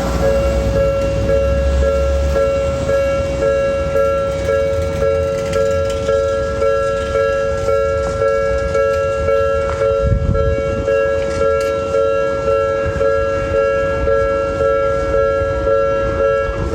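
Japanese level-crossing warning bell ringing in a steady, evenly pulsing two-tone clang. Under it, a tram's low rumble fades out about five seconds in.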